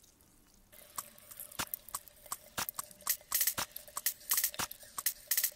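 Ice crackling and popping: irregular sharp clicks and snaps that begin about a second in, over a faint steady tone.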